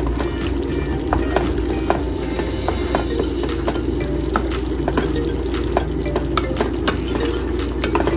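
Thick tomato spaghetti sauce bubbling in a frying pan, with scattered small pops, while a wooden spatula stirs and scrapes through it.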